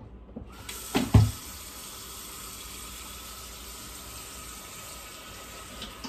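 Kitchen sink tap turned on and running steadily into the sink, with a knock about a second in.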